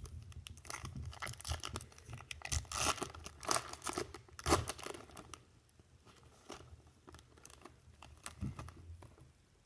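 Foil wrapper of a baseball card pack being torn open and crinkled. A dense run of crackles fills the first half, then thins to scattered rustles toward the end.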